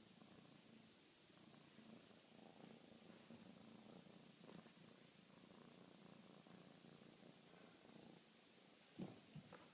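Faint, steady snoring from a sleeping pet, in slow breaths. Near the end, three quick, short knocks sound over it.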